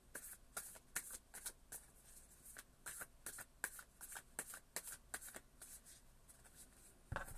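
Tarot cards being shuffled by hand, overhand-style: a quiet run of soft card clicks and slaps, several a second, with one louder knock near the end.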